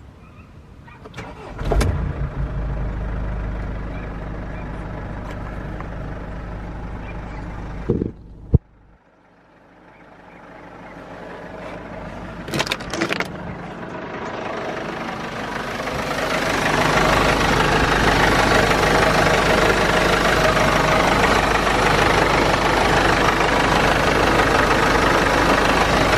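A 2015 Mercedes/Freightliner Sprinter's 2.1-litre four-cylinder diesel is started on its first run after an oil change. It catches about two seconds in and settles into a steady idle. There are a couple of sharp knocks about eight seconds in, and over the second half the engine noise grows louder and hissier.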